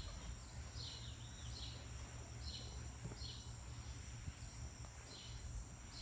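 Faint outdoor ambience: insects trilling steadily at a high pitch, with a bird's short falling calls repeating about once a second, often in pairs, over a low rumble.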